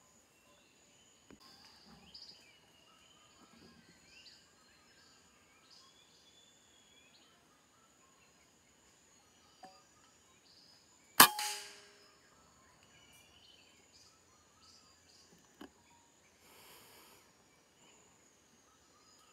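A single PCP air rifle shot about eleven seconds in: one sharp crack with a brief ringing tail. Faint bird chirps and a steady high whine sit under it.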